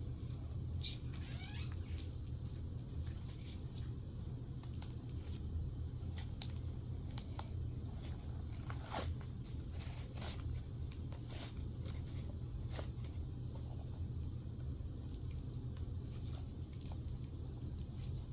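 Slime being squeezed and worked by hand, giving scattered sticky clicks and crackles over a steady low hum.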